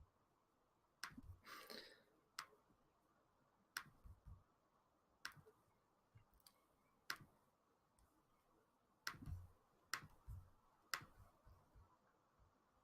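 Computer mouse clicking, single sharp clicks at irregular intervals of about a second or more, against near silence.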